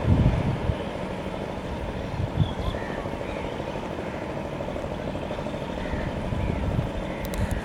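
Passenger train coaches rolling past at speed: a steady rumble of wheels on the track, with a few deeper thumps.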